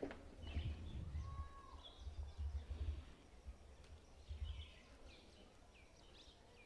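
Faint background with small birds chirping now and then, over a low, uneven rumble that dies away near the end.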